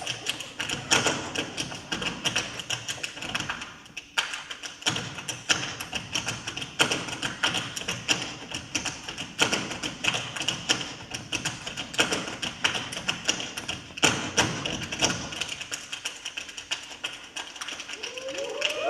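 Percussive sounds made by dancers, with no musical accompaniment: a dense, irregular run of taps with a heavier thump every few seconds, thinning out near the end.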